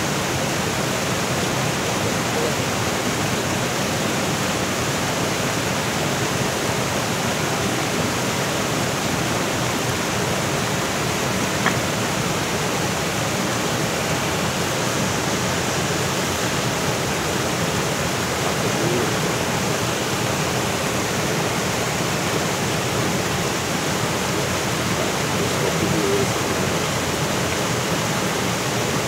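Steady rush of water falling over a small waterfall into a fast-flowing river.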